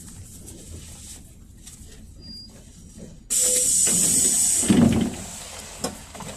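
Sudden loud hiss of compressed air venting from a PAZ 32053 bus's air system, about a second and a half long, ending in a low thump.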